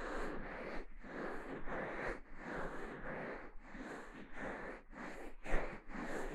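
Fingers rubbing and kneading the silicone ear of a KU100 dummy-head microphone in an ear massage, a close rustling rub in even strokes nearly twice a second.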